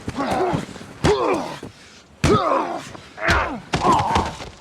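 Fistfight: three heavy punches land about a second apart, each followed by a man's pained grunt.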